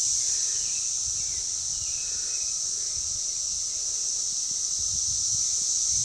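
Chorus of Brood X periodical cicadas heard in the distance, a steady high-pitched drone.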